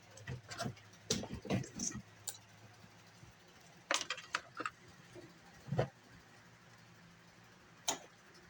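Electric fan motor humming steadily and low, with irregular sharp clicks and knocks over it: a quick cluster in the first two seconds, a few more about four seconds in, and single ones near six and eight seconds.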